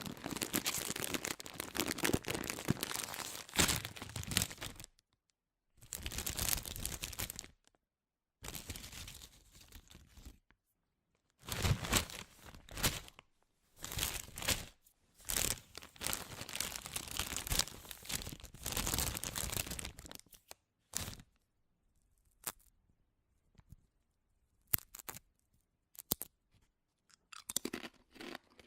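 Potato chip bag being torn open and crinkled, in bursts of crackling rustle a few seconds long with short pauses between them, thinning to scattered crackles over the last several seconds.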